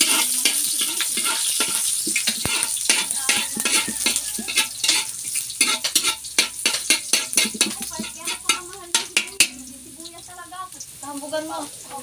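Chopped onion sizzling in hot oil in a large metal wok, with a metal spoon stirring it and scraping and clinking against the pan about two to three times a second. The strokes thin out near the end, when faint voices come in.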